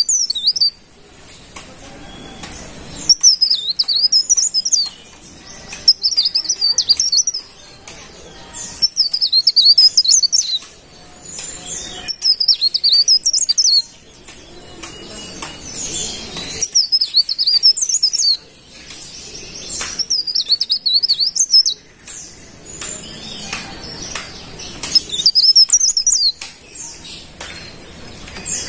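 Cikrak daun (leaf warbler) singing: short, high, rapid warbling phrases about one and a half to two seconds long, repeated every few seconds, about eight times.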